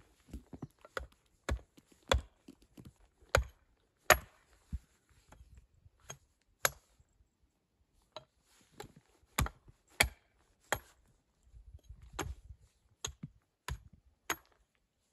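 Wood being chopped with a bladed tool: a run of sharp, irregular chopping strikes, about two a second, that thins out for a few seconds in the middle before picking up again.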